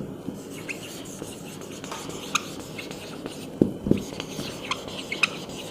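Quiet room noise with a few faint, short clicks and taps scattered through it.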